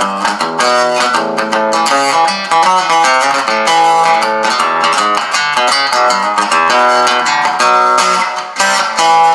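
Madera acoustic guitar, fitted with a pickup, played through a Line 6 amp on a clean setting with reverb: picked notes and chords in quick succession.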